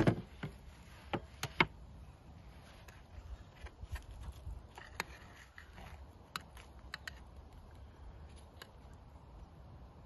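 A metal baking tray set down on a wooden slat table with a sharp knock, then metal tongs clicking and scraping against the tray in scattered light clicks as roasted potato wedges are lifted out.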